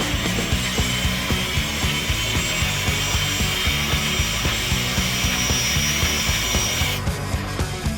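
Background music with a steady beat over a high, rasping mechanical whine from a 1/14-scale RC hydraulic bulldozer's hydraulic pump and motors, which cuts off suddenly about seven seconds in.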